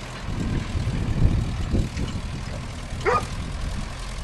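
A truck's engine running as a low, steady rumble, with a dog giving a single short bark about three seconds in.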